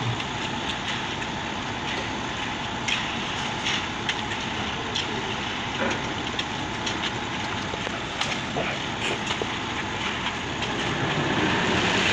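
Transit concrete mixer truck running steadily as it discharges wet concrete down its chute, with scattered short clicks from hand tools. The sound grows louder near the end.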